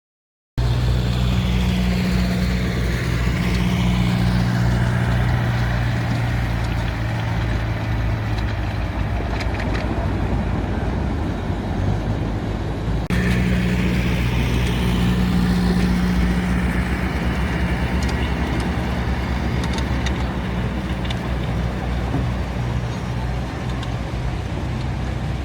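An engine running steadily with a deep, even hum. The sound jumps abruptly about thirteen seconds in.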